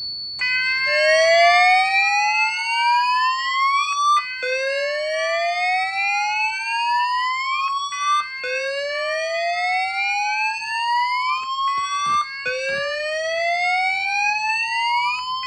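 Fire alarm evacuation signal from the panel's 100-volt speaker and 12-volt sounder: a slow rising whoop tone, about four seconds long, repeating four times, with a steady high-pitched tone under it throughout.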